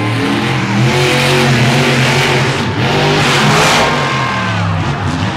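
Loud monster truck engines revving hard during a race, their pitch climbing and dropping again and again as the throttle is worked.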